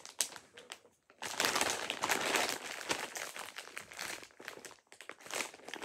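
Rustling and crinkling of a bundle of pipe cleaners being handled and sorted close to the microphone, with a brief lull about a second in.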